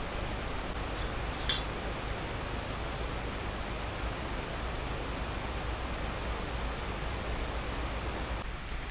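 Steady rushing of a nearby river, with one sharp clink about one and a half seconds in.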